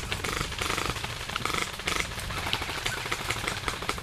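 Airsoft guns firing on full auto in repeated short bursts, a rapid clatter of shots.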